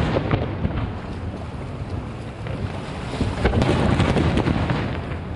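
Aerial fireworks shells bursting: a continuous run of booms and crackles, heavier from about three seconds in.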